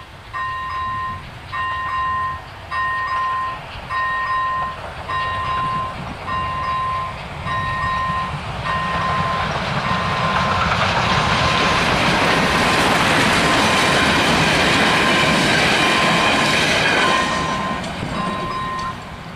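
Level-crossing warning bells ringing steadily, about one ring a second. From about ten seconds in, a train passes over the crossing: its rolling noise grows to the loudest sound for several seconds, then stops near the end, while the bells keep ringing.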